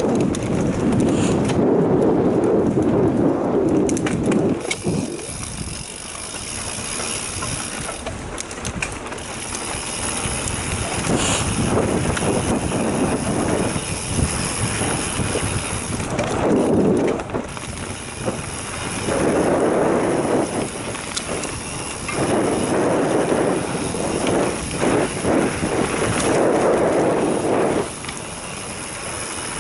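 Mountain bike riding fast down a dirt singletrack, heard from a helmet camera: tyres rolling over dirt, with scattered clicks and rattles from the bike. Wind rushes over the microphone in several louder stretches of a few seconds each.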